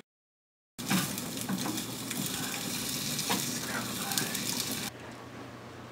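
Eggs frying in a pan, a steady sizzle with a few light clicks. It starts after a moment of dead silence and cuts off abruptly about five seconds in.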